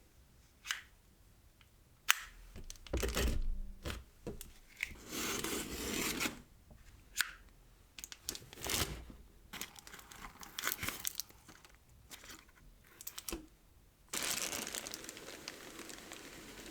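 Packaging being torn open and crinkled by hand: irregular rips and rustles, then a longer continuous tearing sound from about two seconds before the end.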